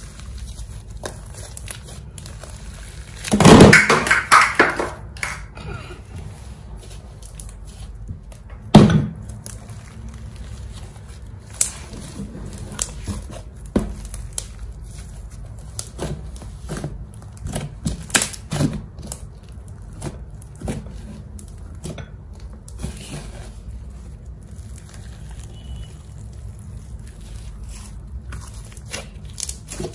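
Purple slime mixed with glitter and sand being kneaded and stretched by hand: squishing with scattered sticky pops and clicks, a louder burst of squishing a few seconds in and a single sharp pop near nine seconds, over a steady low hum.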